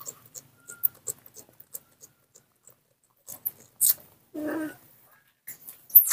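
Baby monkeys eating and suckling: scattered wet smacking and clicking sounds. There is a brief throaty animal sound about four and a half seconds in and a sharper, louder click near the end.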